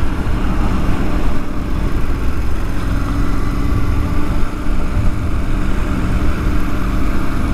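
Motorcycle engine running steadily while riding, with wind noise rushing over the microphone.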